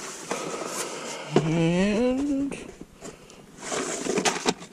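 Rustling and clicking of a package being handled, loudest near the end, with a drawn-out spoken "and" rising in pitch in the middle.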